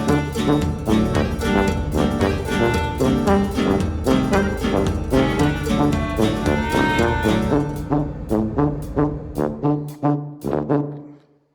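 Music with brass instruments and a steady beat, fading out over the last few seconds.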